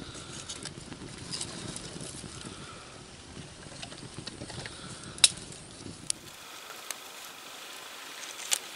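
Small campfire of twigs on a cotton-wool tinder bed catching and crackling, with several sharp pops, the loudest about five seconds in.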